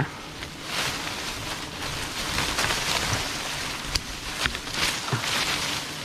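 Dense leafy branches rustling and scraping as a hand pushes through them, with a few sharp twig cracks about four to five seconds in.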